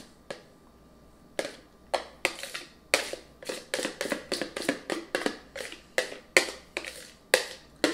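A spatula scraping and knocking thick, creamy pie filling out of a mixing bowl into a crust, in quick repeated strokes about three a second that start after a quiet first second.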